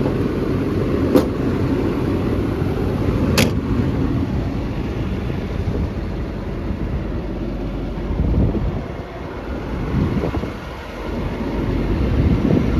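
Cummins diesel engine of an XCMG XE210CU excavator running, a steady low rumble, with two sharp clicks at about one and three and a half seconds in.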